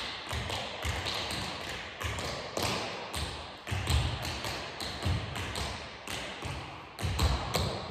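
Tap dancing on a wooden floor: two dancers' feet strike the boards in quick, rhythmic taps, with heavier stamps now and then, the loudest about four seconds in and near the end.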